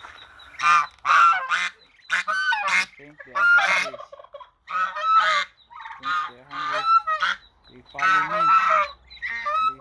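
White domestic geese honking loudly and repeatedly, one call after another with short gaps between.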